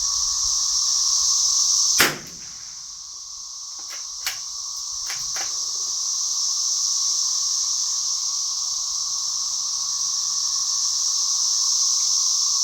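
Cicadas singing in a steady high-pitched drone, with a single sharp .22 LR rifle shot from a Savage bolt-action about two seconds in, followed by a few fainter sharp clicks.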